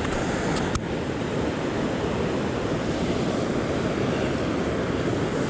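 Steady rushing of water with wind buffeting the microphone, and a single short knock just under a second in.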